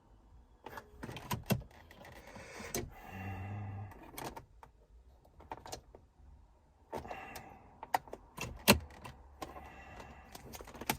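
Scattered clicks and taps from pressing the buttons and turning the knob of a car radio head unit while stepping through its menu, with a short low hum about three seconds in.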